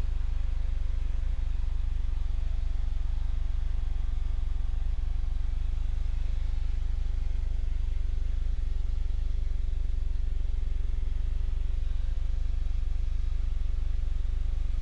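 Steady low drone of an aircraft cockpit, the engine heard through the intercom, with a few faint steady tones above it.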